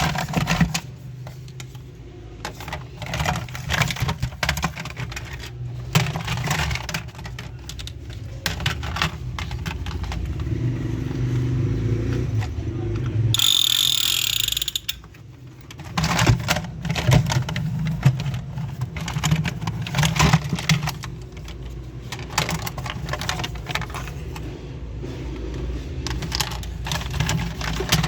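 Plastic toy gun being handled by hand, its parts clicking and rattling in many short, irregular knocks over a steady low hum. About halfway through there is a brief high, hissing buzz.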